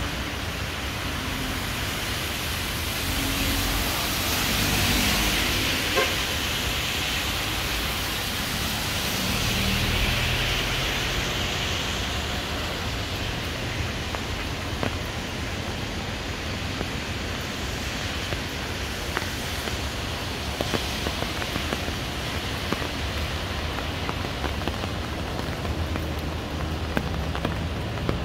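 Steady rain hissing on pavement and trees, with tyre hiss from traffic on the wet road swelling twice, about five and ten seconds in. Scattered sharp drips tick through the second half.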